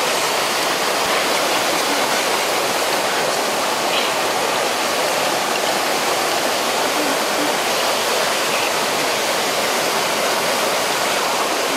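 Shallow stream water running steadily over rocks, an even rushing noise.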